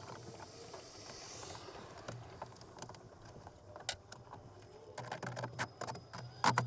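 Scattered clicks and taps of hands fitting a replacement speaker into a car's interior panel, with a quick run of sharper clicks near the end.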